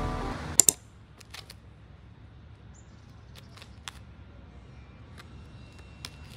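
Background music ends at the very start, then two sharp clicks in quick succession, followed by a few faint scattered ticks and taps over quiet room tone.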